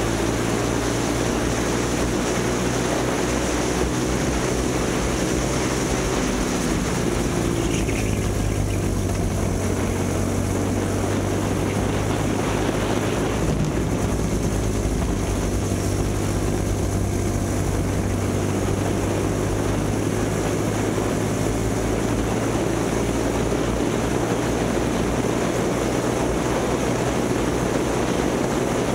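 Kid kart's small two-stroke engine running hard during a race, its pitch dipping and climbing again a few times, notably about seven seconds in.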